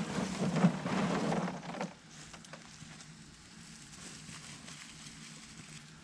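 Fish scraps being scooped by hand out of a large plastic tub: a noisy rustling, scraping handling sound for about the first two seconds. Then only faint background with a few soft footsteps.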